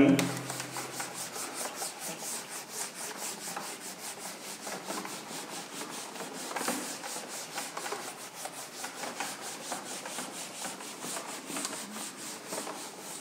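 Whiteboard eraser rubbing marker writing off a whiteboard in rapid, even back-and-forth strokes.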